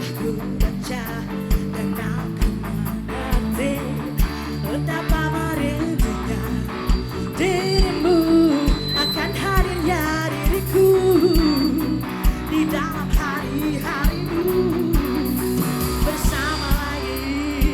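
Live band music with a steady drum beat and guitar, and a voice singing the melody through the middle.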